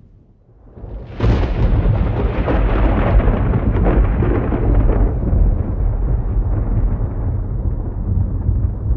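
Thunder: a loud peal breaks about a second in, crackling for a few seconds, then eases into a low rumble that carries on.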